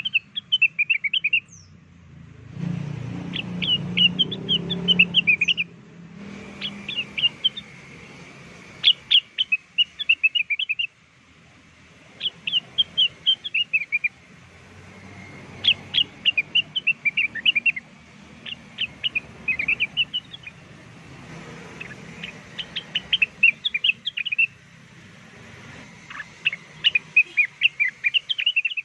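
Lure-call recording of cucak wilis or rengganis birdsong: phrases of quick, sharp, high chirps repeated every second or two, with short gaps between them. A low rumble runs under the song a few seconds in, and the background changes abruptly in places where recordings are spliced.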